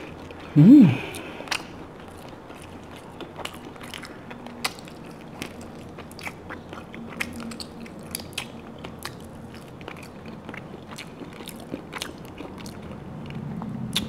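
Close-miked chewing and biting of roast lamb pulled off the rib bone, with many small wet mouth clicks and smacks. A short hummed "mm" just under a second in.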